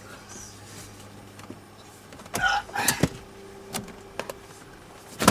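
Work on a car seat being taken out of a BMW E30's interior: a loud scraping squeak of metal parts about two seconds in, a few light clicks, and a sharp metal clank near the end.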